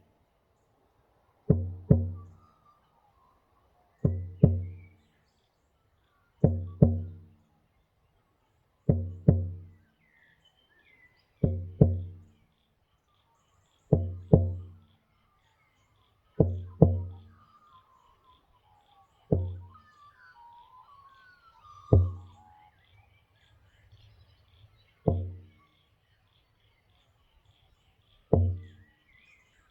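Irish bodhrán frame drum beaten in a slow heartbeat rhythm: paired beats about every two and a half seconds, then single beats spaced a little further apart over the last third, each ringing deep and fading within about a second. Birds chirp faintly between the beats.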